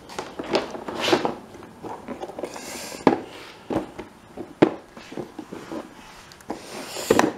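Handling noise: scattered taps, knocks and rustling as things are moved about, with sharper knocks about three seconds in, again a second and a half later, and once near the end.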